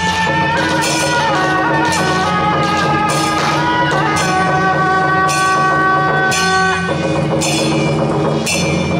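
Temple procession music: a held, step-wise melody over drums and cymbals struck about twice a second. The melody stops about seven seconds in while the percussion keeps going.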